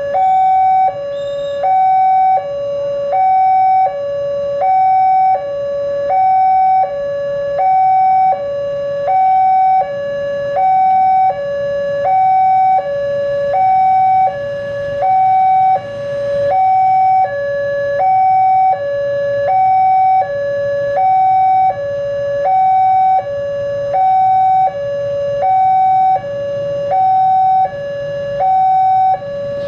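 Railway level-crossing warning alarm sounding an electronic two-tone signal, a higher and a lower tone alternating about every two-thirds of a second, warning that a train is approaching. A low rumble of waiting traffic lies underneath.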